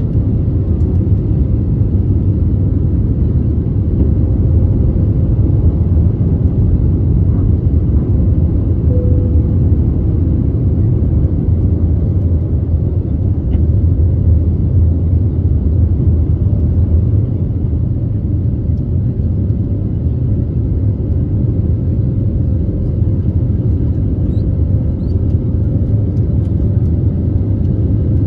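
Airbus A320neo's Pratt & Whitney PW1100G geared turbofan engines at takeoff thrust, heard from inside the cabin over the wing: a steady low rumble with a faint steady tone above it, through liftoff and the initial climb.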